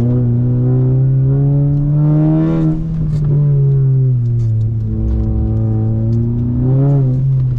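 Turbocharged Subaru Impreza GC8's flat-four engine under hard throttle. Its pitch climbs for about two and a half seconds, then drops off sharply, settles, and rises again briefly near the end.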